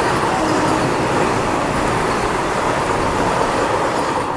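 Two trains passing at speed: the rush of the Vande Bharat electric train set going by on the adjacent track, over the running noise of the moving express. The dense noise drops away sharply near the end as the last coach clears.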